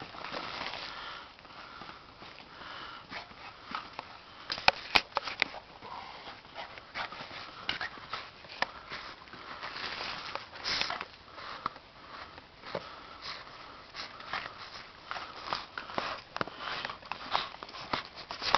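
Puppies sniffing close by, with many short clicks and taps scattered through, the sharpest about four to five seconds in and near the end.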